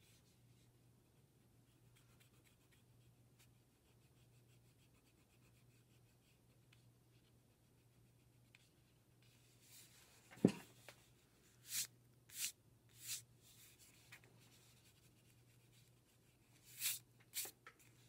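Graphite pencil scratching on paper in short sketching strokes: faint light lines at first, then a sharp knock about ten seconds in, followed by five louder quick strokes. A faint low hum sits underneath.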